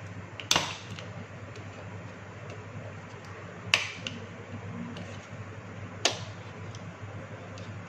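Three sharp clicks of a small screwdriver prying at a Hioki clamp meter's plastic jaw assembly and circuit board, over a steady low background hum.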